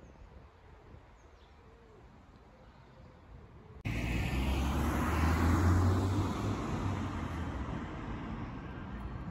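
Quiet street ambience, then from about four seconds in a vehicle passing on the road, its engine and tyre rush swelling and easing off.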